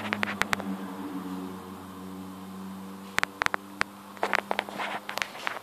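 A steady low mechanical hum made of several stacked tones, fading out near the end, with sharp clicks and knocks near the start and again in the second half.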